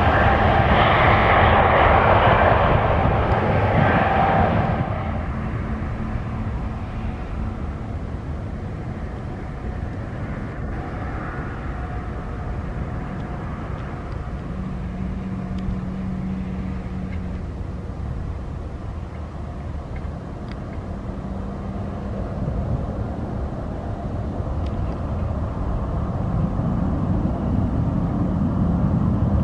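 Jet engine noise from an Airbus A220-300's Pratt & Whitney PW1500G geared turbofans at takeoff power, heard from beside the runway with a few steady tones in the noise. It is loudest for the first few seconds, drops to a lower steady level, then swells again near the end as the jet climbs away.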